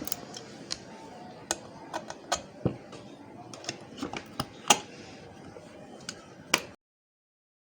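Tools and small metal parts clicking and tapping while a hard disk drive is taken apart to remove its spindle motor: irregular sharp clicks, some louder knocks, over a faint steady hum. The sound stops dead near the end.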